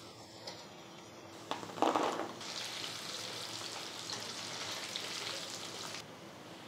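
Starch-coated chicken pieces deep-frying in hot oil in a wok, sizzling steadily with a high hiss on the high-flame second fry that crisps them. A short louder burst comes about two seconds in, and the sizzle drops off near the end.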